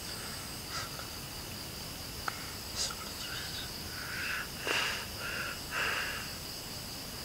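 Night insects chirring steadily at a high pitch, with several short breathy sounds close to the microphone, sniffs or breaths, and a single sharp click a little after two seconds in.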